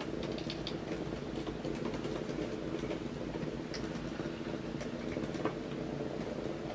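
Two Hexbug Nano v1 micro-robots buzzing steadily from their vibration motors as their flexible legs patter across a wooden board, with scattered light ticks and clicks.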